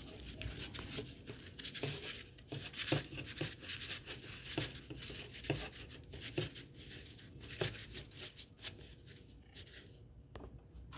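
Hands rolling a strip of corrugated cardboard tightly: dry rubbing and crinkling with many small crackles, dying away near the end.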